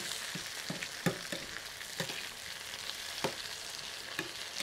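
Chopped tomatoes, onion and chiles sizzling as they fry in oil in an enamel pan, stirred with a plastic spoon that knocks against the pan several times.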